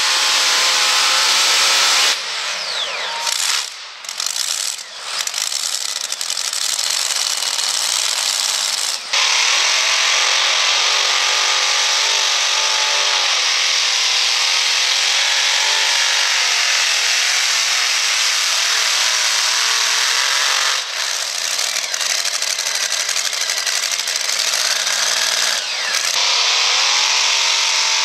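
Supercharged engines of pulling trucks at full throttle hauling a sled, the pitch wavering as engine speed rises and falls under load. The sound drops and breaks up from about two seconds in, returns at full strength near nine seconds, and dips again briefly in the last third.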